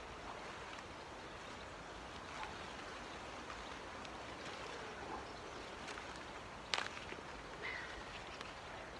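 Hands rummaging and scraping through loose potting soil in a potato container, a soft continuous rustle with a sharp click about two-thirds of the way through.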